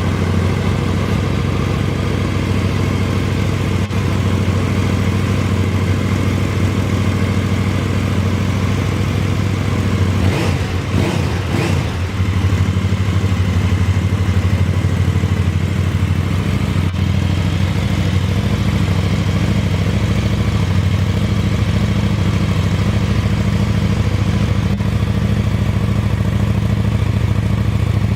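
KTM 1290 Super Duke R's 75° V-twin idling steadily, with a short blip of the throttle about ten seconds in.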